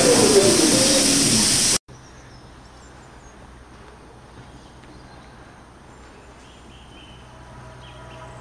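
London Underground A Stock train: a loud hiss with a whine falling steadily in pitch, cut off suddenly after about two seconds. Then quiet outdoor ambience with birds chirping, a low steady hum, and a faint whine building near the end as an A Stock train approaches.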